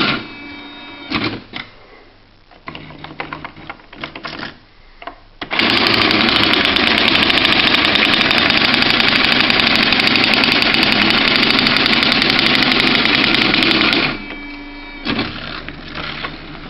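Quen-Data Executive 80 daisy-wheel electronic typewriter running its built-in print test, hammering out every character on the wheel in a loud, fast, continuous chatter. The chatter starts about five seconds in and stops about fourteen seconds in, with quieter clicks and carriage or wheel movements before and after it.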